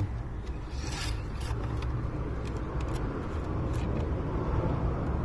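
A few light scrapes and clicks of parts being handled under the hood, over a steady low hum.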